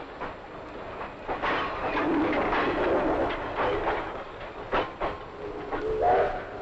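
TAF diesel train rolling into a station, its wheels on the rails with sharp clanks and brief squeals near the end.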